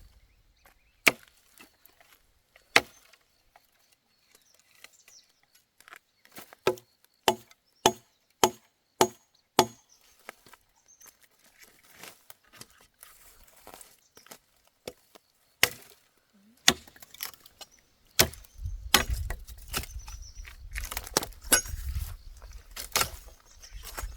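Wood being chopped: sharp single blows into wood, a few spaced out at first, then a quick run of about six strokes in the middle and more scattered blows near the end, over a low rumble.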